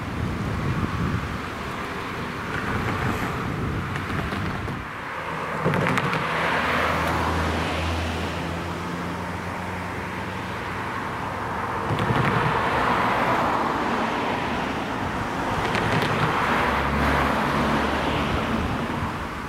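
Several cars passing one after another, tyre and engine noise swelling and fading each time, with a low engine hum as the louder ones go by.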